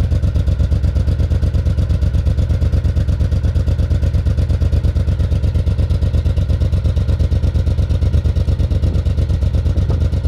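Suzuki Intruder 1500 LC's V-twin engine idling steadily through its exhaust, with an even, throbbing pulse and no revving.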